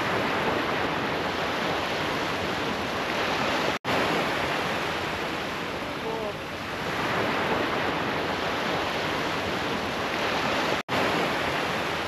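Sea surf washing on a beach: a steady hiss of breaking waves that swells and eases every few seconds, broken by two brief gaps about four and eleven seconds in.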